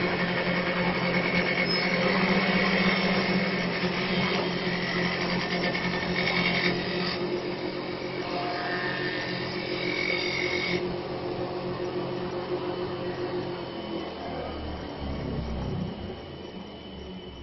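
TJ1530 CNC wood-turning lathe cutting a spinning wooden spindle: a loud, steady machining noise of the cutter on the wood, with a steady mechanical whine. About eleven seconds in the cutting noise drops away and the machine runs on more quietly.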